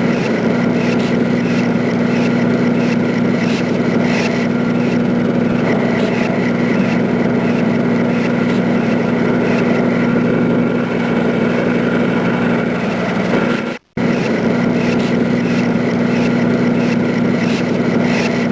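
Factory machinery running steadily: a loud, constant hum with a few steady tones over it and a faint, regular ticking. The sound drops out for an instant about three-quarters of the way through.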